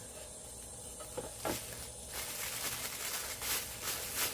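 Packaging rustling and crinkling as it is handled, starting with a few light clicks and turning into steady crinkling from about halfway through.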